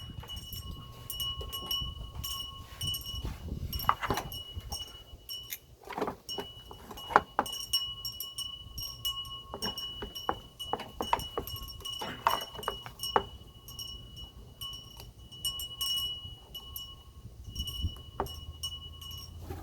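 Metal tools and generator parts clinking, clicking and knocking at an irregular pace as a small generator is taken apart by hand, over a low steady hum and a faint steady high whine.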